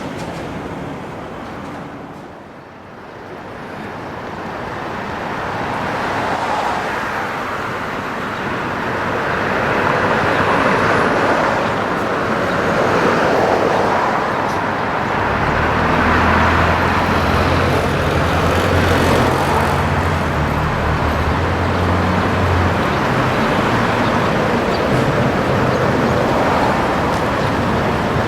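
Street traffic noise: vehicles running and passing, with a heavy engine's low, steady running note coming in about halfway through and fading out some seconds later.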